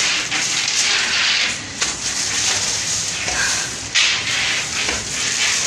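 Crackling, rustling handling noise on a hand-held phone microphone, with a couple of short knocks about two and four seconds in.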